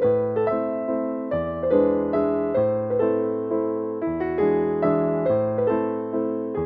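Background piano music: a gentle melody of struck notes that each fade away, over a bass line that changes every second or so.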